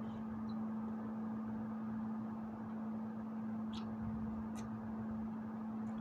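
A steady low hum runs throughout, with two faint clicks of chewing on fruit about four seconds in.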